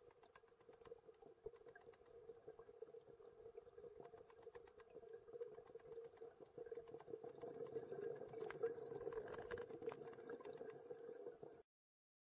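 Faint underwater ambience: a steady low hum with many small clicks and crackles, growing louder in the second half, then cutting off suddenly to silence near the end.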